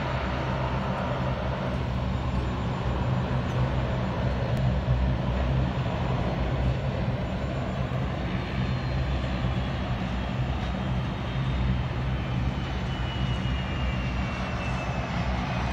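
Boeing 757-200 jet engines running at a distance, a steady rumble with a faint high whine that slowly falls in pitch over the second half.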